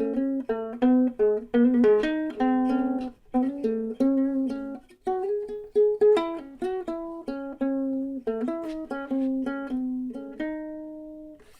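Harley Benton soprano ukulele being picked by hand: a quick run of single plucked notes with a few chords mixed in. The last note is left to ring and dies away near the end.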